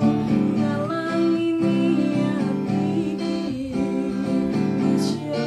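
A woman singing to her own strummed acoustic guitar.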